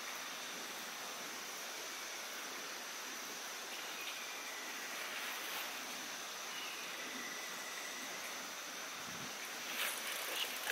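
Steady outdoor background hiss, like flowing water, with a thin, high, steady tone over it. A few light clicks come near the end.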